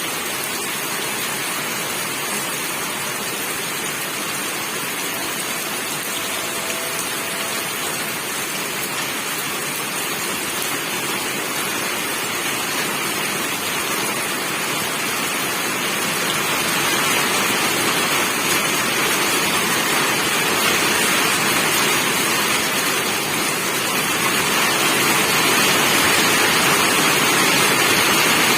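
Steady rain, a dense even hiss that grows somewhat louder in the second half.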